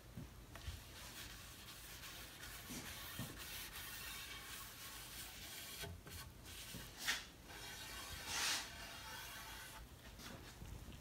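A folded cotton rag rubbing a wet oil-varnish finish into a hardwood panel in a soft, continuous hiss of strokes. Two strokes in the second half are louder.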